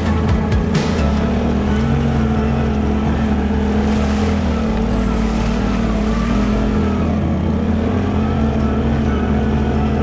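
ATV engine running steadily at low revs while the quad pushes through mud, with a few sharp knocks in the first second.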